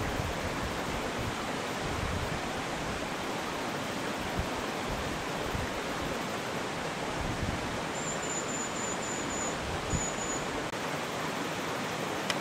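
Steady rushing of a nearby bush stream. A thin, high, steady note sounds for about a second and a half near the end, then once more briefly.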